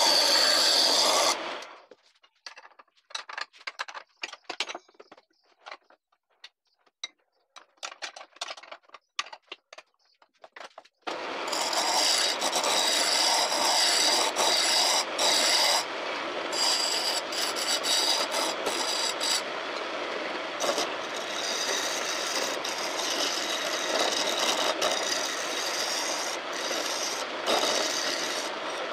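Steel chisel scraping and cutting a spinning maçaranduba hardwood blank on a homemade wood lathe, a dense, steady rasping noise. About two seconds in the cutting stops, leaving only faint scattered ticks and scrapes, and it starts again about eleven seconds in and runs steadily.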